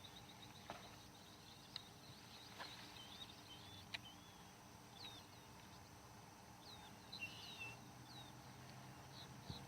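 Faint birds chirping, short scattered calls, over quiet outdoor ambience, with a few soft clicks in the first few seconds.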